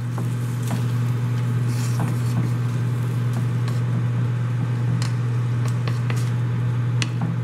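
Wooden spoon stirring shrimp and rice in a frying pan, with scattered light taps and scrapes against the pan and a faint sizzle, over a steady low hum.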